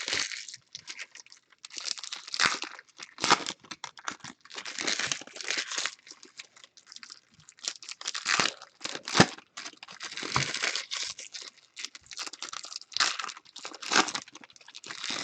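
Baseball card pack wrappers being torn open and crinkled by hand: repeated irregular rustling and tearing with sharp crackles.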